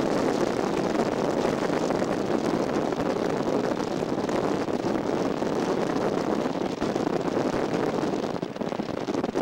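Steady rush of wind and road noise inside the cabin of a moving van.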